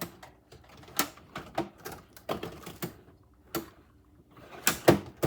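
Irregular clicks and knocks, a clatter of small hard objects being handled and moved about, with short quiet gaps between them.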